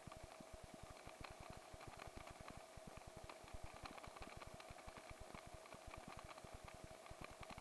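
Faint helicopter main rotor, a rapid even beat of low pulses with a steady whine over it.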